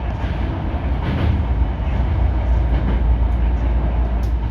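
Hankyu 9300 series electric train running, with a steady low rumble and a brief hiss about a second in.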